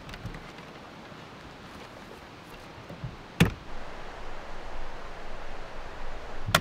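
Two sharp thumps about three seconds apart, with rustling handling noise between them, over a steady background hiss.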